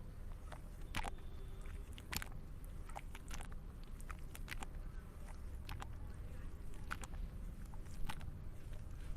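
Thick, creamy cement-like slime paste being squeezed and worked by hand, giving irregular sticky clicks and pops over a low steady rumble.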